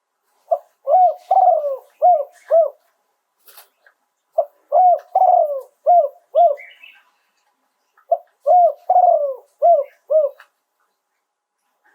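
Spotted dove cooing: three repeated phrases, each a run of about five short, arched coo notes, with pauses of about two seconds between phrases.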